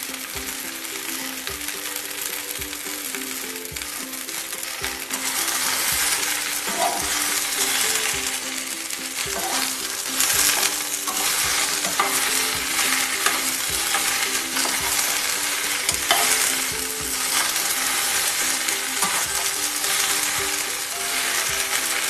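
Chopped okra frying in hot mustard oil in a metal kadhai, a steady sizzle, with a spatula stirring the pieces and scraping across the pan now and then. The sizzle grows louder about five seconds in.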